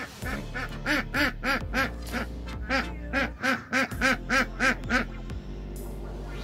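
A domestic duck quacking loudly in a rapid series of about seventeen quacks, three to four a second, that stops about a second before the end.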